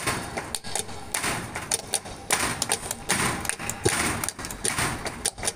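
Flamenco dancer's footwork: runs of sharp heel and toe stamps on the stage boards.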